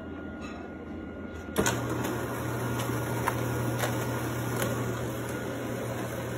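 Automatic self-cleaning litter box starting up about a second and a half in: its electric motor runs with a steady hum and a grainy rustle as the rake sweeps through the litter, with a few light clicks.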